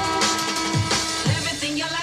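Loud electronic dance music with a heavy bass-drop kick about every half second, held synth tones and hi-hats.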